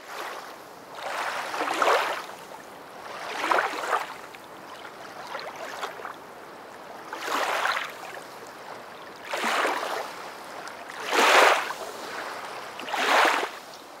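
Water sloshing in swells that rise and fall about every two seconds, six times, over a faint steady hiss.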